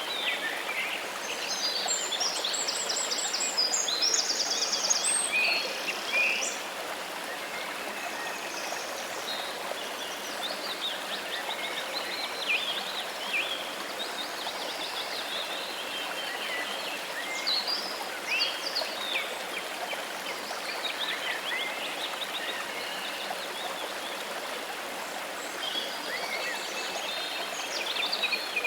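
Steady rush of flowing water, with birds chirping and trilling over it, busiest in the first several seconds and again near the end.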